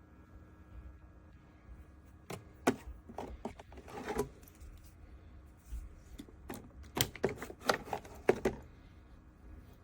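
Handling of a small thermoelectric mini fridge and its contents: two bursts of clicks and knocks, about two seconds in and again about seven seconds in, over a faint steady hum.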